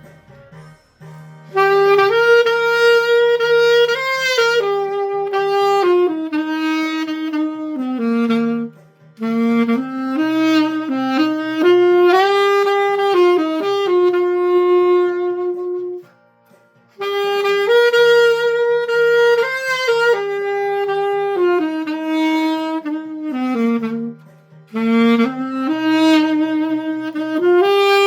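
Alto saxophone (Selmer Mark VI with a Theo Wanne Durga 5 metal mouthpiece and a synthetic reed) playing a slow melody in phrases, with short breaths between them, over a soft backing accompaniment. It is played dry, with no added effects.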